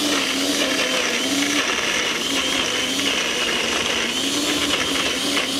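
Countertop blender running continuously, blending a frozen banana and mango passion fruit sorbet daiquiri. The motor's pitch dips and rises a little as the load shifts.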